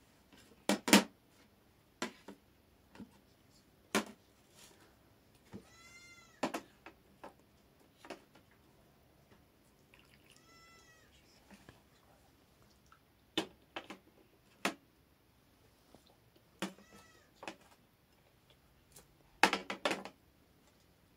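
Scattered sharp knocks and clatters at irregular intervals, loudest in a cluster about a second in and again near the end, with three short, high-pitched animal calls that rise and fall in pitch, each about half a second long, spread through the middle.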